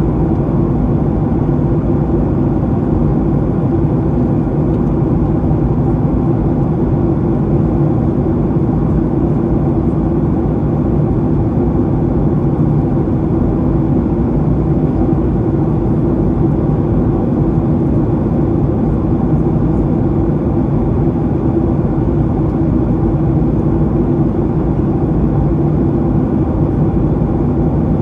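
Steady cabin noise inside a Boeing 737-800 in flight: the low hum of its CFM56-7B turbofan engines blended with airflow rush over the fuselage, unchanging throughout.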